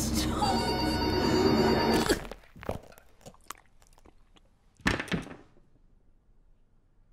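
Horror-film sound design: a dense, ringing, bell-like drone of many layered tones that cuts off abruptly about two seconds in. A few faint ticks follow in the quiet, then a short, sharp gasp about five seconds in.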